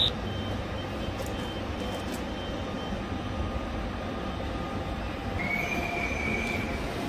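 ÖBB Railjet passenger coaches rolling slowly along the platform with a steady low rumble, and a brief high wheel squeal about five and a half seconds in.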